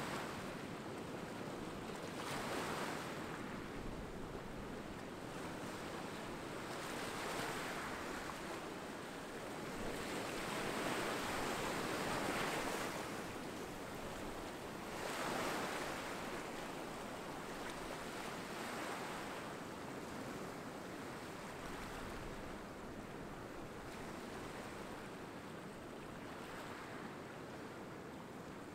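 Small ocean waves breaking among rocks and washing up a pebbly sand beach, the surf swelling and ebbing every few seconds and a little softer near the end.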